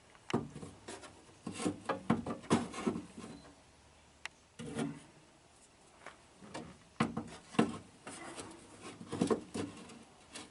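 Hand-fitting a window regulator's nylon slider into its metal channel: clusters of sharp clicks and knocks with scraping and rubbing between them.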